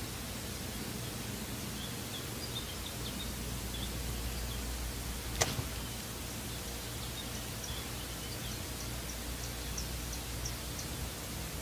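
Forest ambience playing from a laptop's speakers: a steady hiss with many small, high bird chirps scattered through it. One sharp click about five seconds in.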